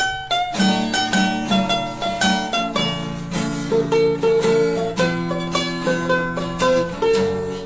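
Background music: a plucked string instrument, mandolin- or guitar-like, picking a quick tune over held lower notes.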